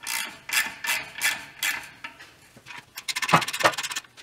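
Socket ratchet on a 13 mm bolt, worked back and forth in several raspy strokes, then a quick run of fast ratchet clicks about three seconds in as the loosened bolt is spun out.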